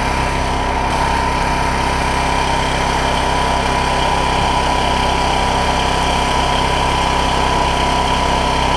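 A small engine running steadily at an even speed, with a constant hum and no change in pitch.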